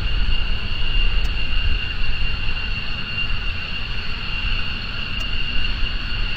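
Mitsubishi F-15J's twin turbofan jet engines at taxi power: a steady high-pitched whine over a low rumble.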